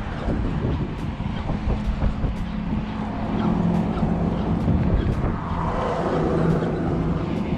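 Wind rumbling on the microphone, with a steady engine drone from a passing vehicle that comes in about a second and a half in and fades out near the end.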